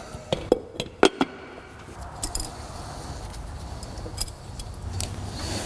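A few light metallic clicks and clinks, most in the first second and a half, with a couple more later, over a steady low hiss.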